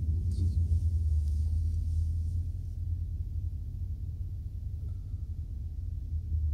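Steady low rumble inside the cabin of a Mercedes-Benz G-Class crawling along a rough off-road track: engine and drivetrain drone with tyre noise.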